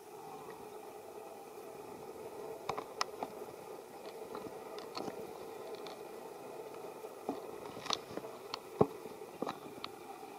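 Pigtail macaque drinking from a small carton held to its mouth: scattered wet squishes, sucks and clicks, the loudest a little before the end, over a faint steady background.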